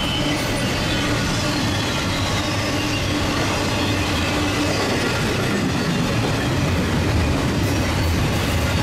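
Double-stack container cars of a freight train rolling past, a steady noise of steel wheels on the rails.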